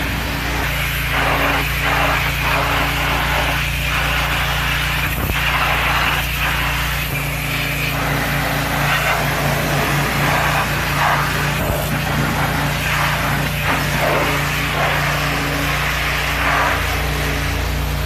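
A car-cleaning machine running steadily: a low motor hum under a loud rushing hiss, with the hum changing a few times.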